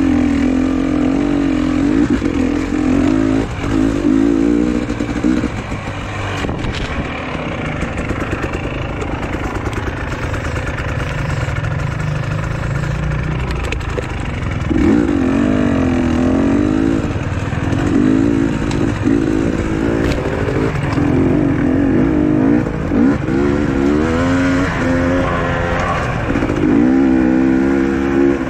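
Trail motorcycle engine running under load, its pitch rising and falling with the throttle. It eases off for several seconds in the first half, then pulls hard again with a wavering pitch.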